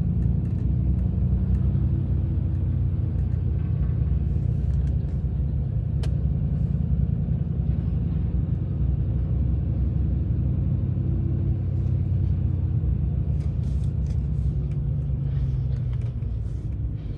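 A vehicle towing a farm auger, driving steadily along the highway: a continuous low engine and road drone, with one sharp click about six seconds in.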